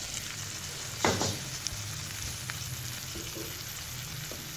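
Oil and onion-tomato masala sizzling steadily in a kadhai under freshly added ridge gourd slices, with one sharp knock about a second in.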